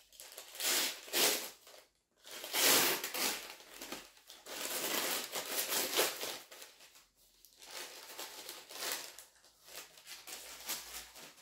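Brown kraft-paper gift bag crinkling and tearing as it is opened by hand and its contents pulled out. The paper noise comes in uneven bursts and is loudest from about two to six seconds in.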